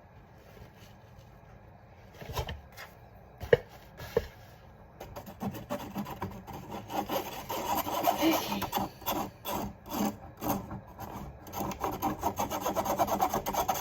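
A few knocks, then from about five seconds in a kitchen sieve being worked to sift dry baking ingredients, heard as a fast, uneven run of strokes.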